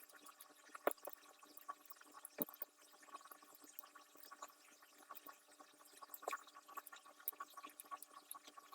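Faint, scattered light clicks and taps of small steel hex keys and the folding handle being handled, with a low hiss between them.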